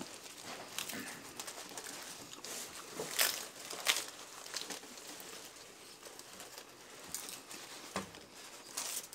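Crunchy hard-shell tacos being chewed, with paper taco wrappers crinkling, and a few sharp crunches about three and four seconds in.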